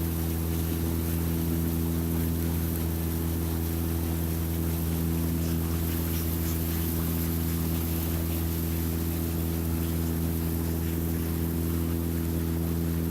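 Engine running at a steady speed: an even, unchanging drone with a constant hiss over it.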